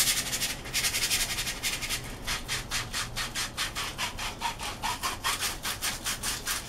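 Coarse sandpaper rubbed rapidly back and forth by hand along a white plastic pipe, a rasping scrub of about five strokes a second, roughening the pipe's surface so glue will grip it.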